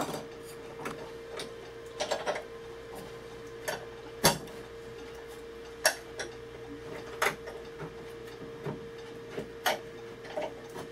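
A chisel being struck by hand, chopping a mortise in a hardwood workpiece: sharp, hard taps at irregular intervals, a few strokes spaced about a second apart.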